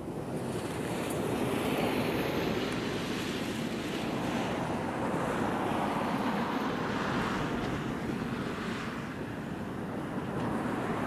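Jet engines of a landing Airbus A320, a steady rushing roar that builds over the first two seconds and then holds with slow swells. Gusty wind buffets the microphone underneath.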